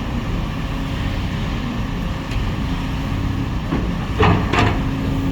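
Excavator engine running steadily at a low rumble, with two sharp metallic clanks in quick succession about four seconds in.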